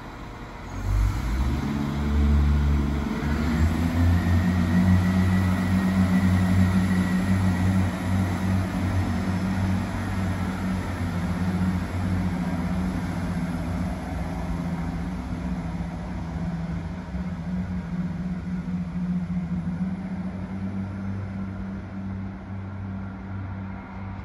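Irish Rail diesel multiple unit pulling away from the platform. Its diesel engines open up about a second in with a low, steady engine note, then fade slowly as the train draws away.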